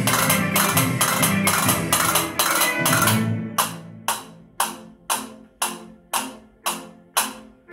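Castanets clacking along with recorded Spanish music. About three seconds in, the full music thins out into sharp separate strokes about two a second, each ringing away before the next.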